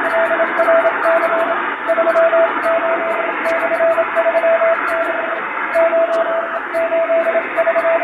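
Hand-sent Morse code from a straight key, heard as a steady beep keyed into short and long pieces over shortwave-style static hiss with fading added. It spells out the preamble of a ship's radiotelegram in English-letter Morse: message number, ship's name, coast-station call sign, word count and time.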